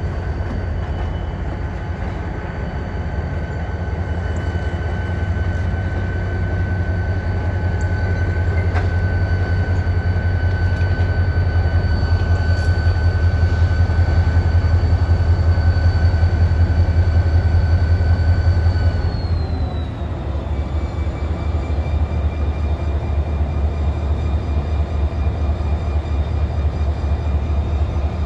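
Norfolk Southern diesel-electric locomotives running at low speed: a steady low engine drone with a high whine above it. About twenty seconds in, the whine drops a little in pitch and the sound briefly eases before building again.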